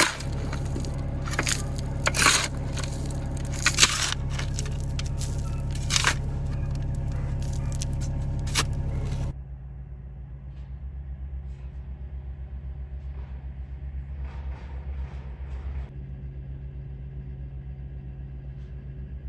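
Hitachi ZX26 mini excavator's diesel engine running steadily, with the bucket scraping and knocking through soil and gravel several times in the first half. About nine seconds in the sound turns abruptly duller and quieter, and the engine hum carries on under fainter scraping.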